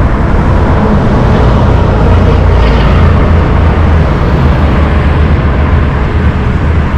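Steady noise of heavy road traffic on a busy highway, heard from a moving bicycle, with a strong continuous low rumble.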